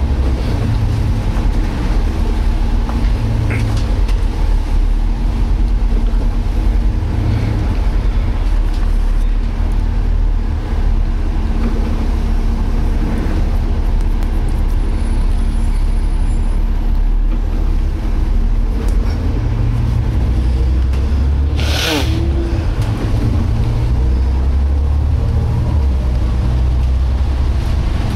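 Inside a Volvo B7TL double-decker bus on the move: the engine and drivetrain running with a low rumble and a steady whine, the strange noise from the differential. About 22 seconds in, a short loud hiss of air is let out from the bus's air system.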